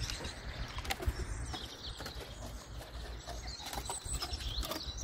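Quiet outdoor garden ambience with a few birds chirping faintly and scattered light knocks and clicks.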